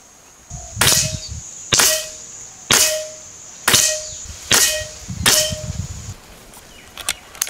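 Gare Falcon fully regulated PCP air rifle firing six shots in quick succession, about one a second, each a sharp pop followed by a brief ringing tone.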